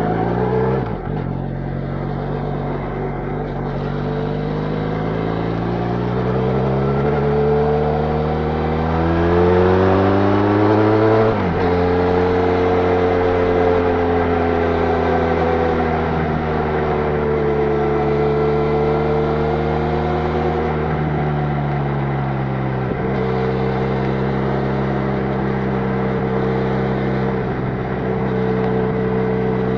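Benelli Leoncino 500's parallel-twin engine through its stock exhaust under hard acceleration on the highway: the pitch climbs steadily for about ten seconds and drops sharply at an upshift. It then holds high revs near the bike's top speed, easing off and picking up again about two-thirds of the way through.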